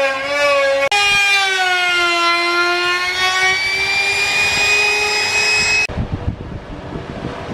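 Compact trim router with a bearing-guided flush-trim bit running along a plywood edge: a high whine whose pitch sags about a second in, then climbs back over the next few seconds. It cuts off suddenly near the end, leaving a quieter rough noise.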